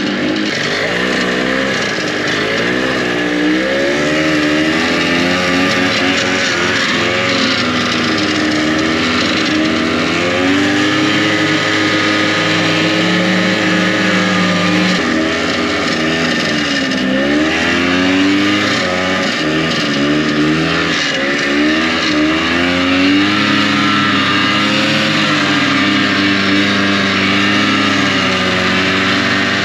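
Snowmobile engine running under way, its pitch rising and falling repeatedly as the throttle is worked over snow.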